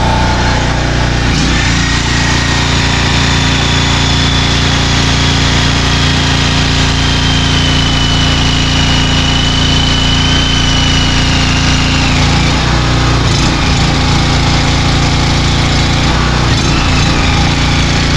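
An engine running steadily at a constant speed, with a thin high whine over it for several seconds in the middle that sinks slightly in pitch.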